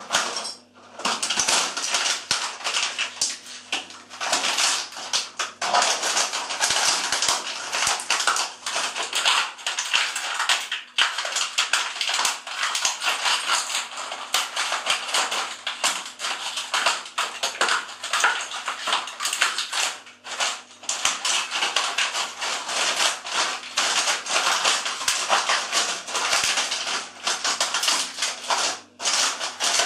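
Plastic toy cars being crushed underfoot: a dense, continuous crackling and snapping of breaking plastic, with a few short pauses.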